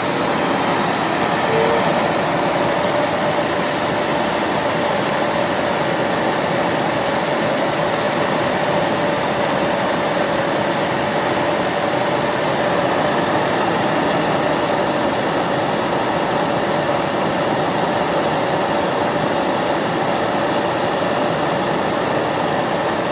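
Bagless vacuum cleaner running steadily at full power: a constant motor whine over the rush of air.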